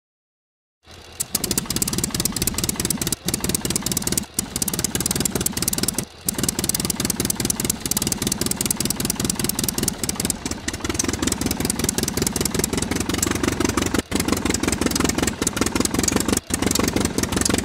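LEGO Power Functions electric motor driving the plastic gears and spinning rotors of a LEGO Technic helicopter model, with a dense, rapid rattle over a steady hum. It starts about a second in and runs on with a few very short breaks.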